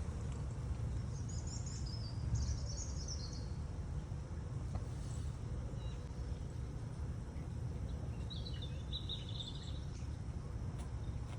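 A small bird chirping in two short bursts of quick high notes, about a second in and again near the end, over a steady low background rumble.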